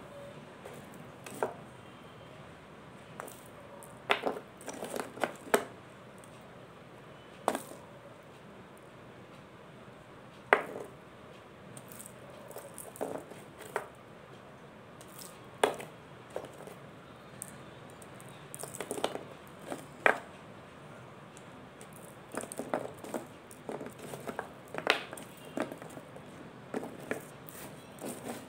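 Crumbled mothball chunks being crushed and broken between fingers: irregular sharp crunches and crackles. Some come singly and some in quick clusters, with softer grainy crackling between them.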